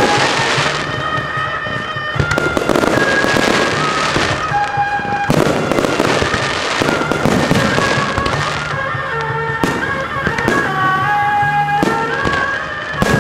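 Aerial firework shells bursting one after another, sharp bangs each followed by a crackling hiss, over music with a melody.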